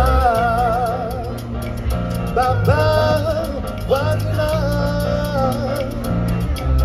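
A man singing a slow melody with wide vibrato, scooping up into his notes, over a recorded backing track with a steady bass line.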